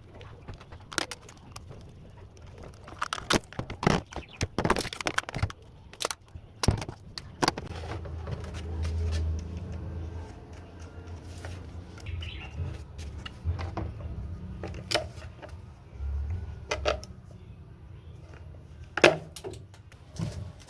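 Irregular knocks, clicks and clatter of hard objects being handled, with a low hum for several seconds in the middle.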